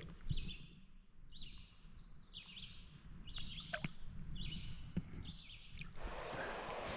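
A bird repeats a short, high call about eight times, roughly once every two-thirds of a second, with a few sharp clicks among them. About six seconds in, this gives way abruptly to a steady hiss of outdoor noise.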